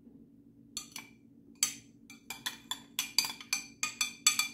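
Metal spoon clinking against a small glass bowl while scraping out the last of the tomato sauce. About a dozen sharp, ringing taps come faster and closer together toward the end.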